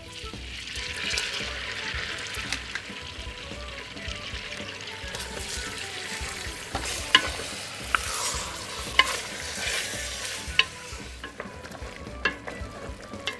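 Cubes of beef frying in butter in a stainless steel pot, a steady sizzle. A wooden spoon knocks against the pot several times in the second half.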